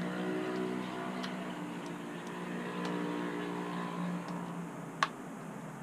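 Small plastic clicks of a Canon EOS M6 mirrorless camera being handled as a memory card goes into its bottom battery-and-card compartment, with one sharp click about five seconds in. A steady low hum with several overtones runs underneath.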